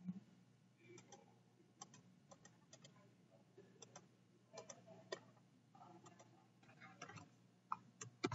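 Faint, scattered computer mouse clicks, irregular and a second or so apart, over a low steady electrical hum.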